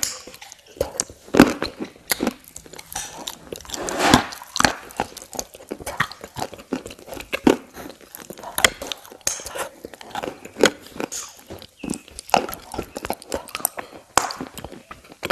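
Close-miked chewing and crunching of mouthfuls of frozen ice cream, a steady run of irregular crisp crunches and wet mouth sounds.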